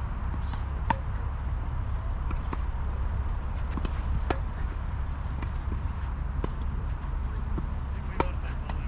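Tennis ball being struck by rackets and bouncing on the court during a doubles rally: a series of sharp pops, the loudest about a second in and near the end, over a steady low rumble.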